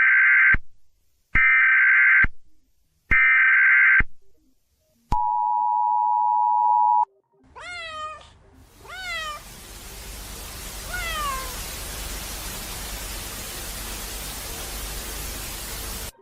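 Mock Emergency Alert System alarm: three short bursts of data-header tones, then the two-tone attention signal held for about two seconds. A cat then meows three times while a loud static hiss comes up under it and stays, cutting off just before the end.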